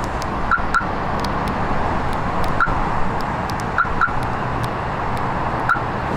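Steady vehicle or road-traffic noise, with six short high chirps: a pair near the start, one in the middle, another pair, and one near the end.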